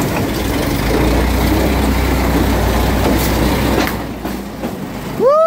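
Engine idling steadily, easing off about four seconds in. Near the end, a loud, high call starts, rising sharply and then slowly falling.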